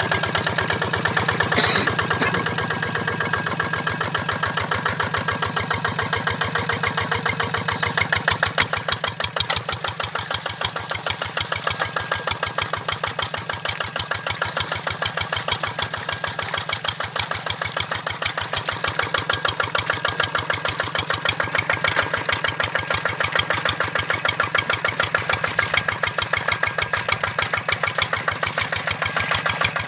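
Kubota RD85 single-cylinder diesel engine on a Quick G1000 Boxer hand tractor running steadily just after starting, its even firing beats growing more distinct about eight seconds in. A faint steady whine runs over the engine, a sound the uploader likens to a turbo.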